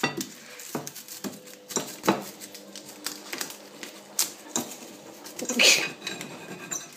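Metal fork clicking and scraping against a ceramic plate as onion skin is picked off, in irregular taps. One longer, louder scrape comes about five and a half seconds in.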